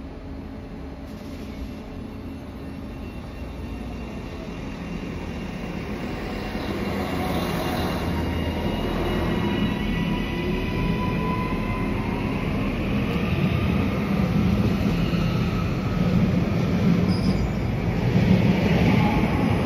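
Rail vehicle running on track with its wheels squealing in sliding high tones over a low rumble, growing steadily louder as it comes closer.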